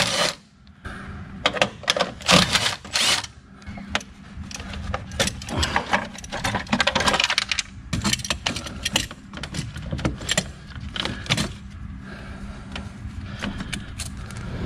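Cordless ratchet running in short rattling bursts on the battery-tray bolts, followed by clicking and clattering of plastic and metal parts and cables being handled in the engine bay.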